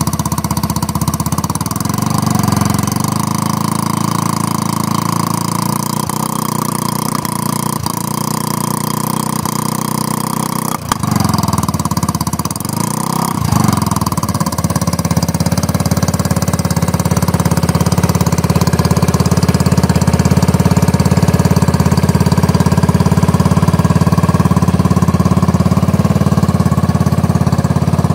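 Engine of a custom American Sportworks Carbide 150cc dune buggy with a gutted exhaust, running at idle while it warms up after a cold start. About halfway through it dips briefly and is blipped up and back down a couple of times, then settles into a steady, slightly louder idle.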